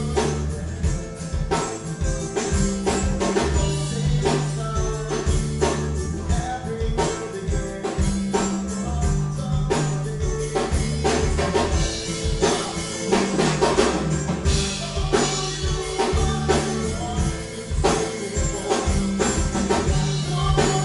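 Live rock band playing: electric guitars and a drum kit with a steady beat, and a lead vocal.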